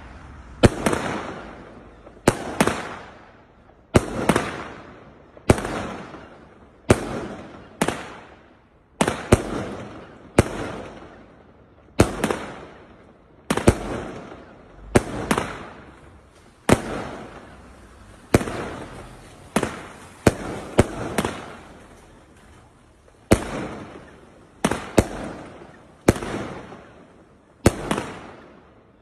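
A Gemstone Fireworks Cobalt 25-shot barrage cake firing: a sharp bang about every second and a half as each shot bursts, sometimes two in quick succession, each bang trailing off over about a second.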